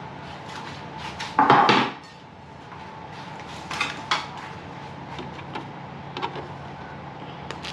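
Food steamer tray being handled as pork rolls are set on it: a short clatter about one and a half seconds in, then a few light clicks and taps, over a low steady hum.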